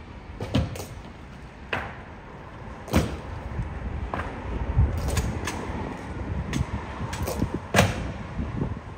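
A string of sharp, irregularly spaced clicks and knocks, about a dozen in nine seconds, over a steady low rumble.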